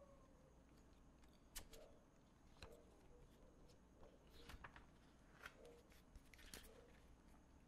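Near silence with a handful of faint paper rustles and clicks as the pages of a comic book are handled and turned.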